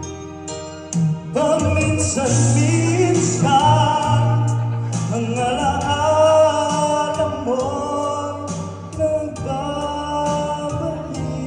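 A man singing a Tagalog love song into a microphone over instrumental accompaniment. His voice comes in about a second in, with long held notes.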